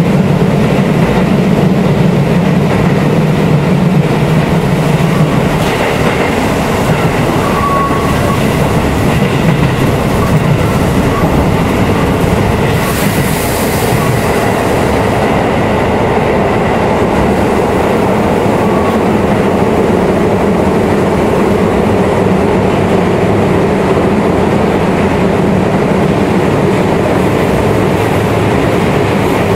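Keisei 3700-series electric train with a Toyo GTO-VVVF inverter, running along the line and heard from inside the passenger car: a steady rumble of wheels on the rails, with a brief hiss about thirteen seconds in.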